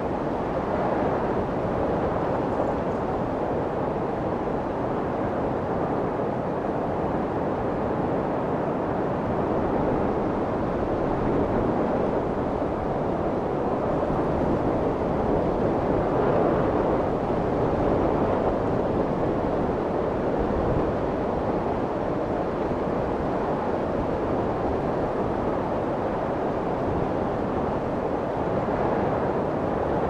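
Steady rushing white noise with slow, gentle swells in level.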